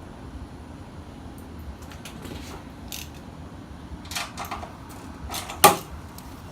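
Small clicks and clanks of hand tools and parts during generator disassembly, then one sudden, loud, startling bang about five and a half seconds in.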